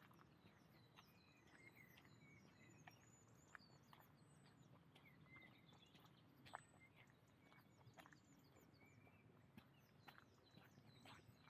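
Faint birdsong in woodland: several small birds chirping and twittering throughout, with scattered soft clicks of footsteps on the forest path.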